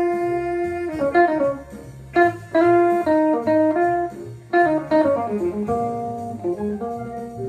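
Telecaster-style electric guitar played clean, picking a single-note jazz blues solo line: one held note for about the first second, then quick runs of separate notes. A low bass line moves underneath.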